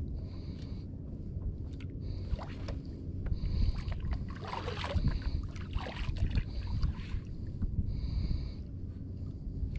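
Water sloshing and lapping against the hull and outrigger of a drifting bangka outrigger boat, with a low rumble throughout. The slosh is busiest about halfway through.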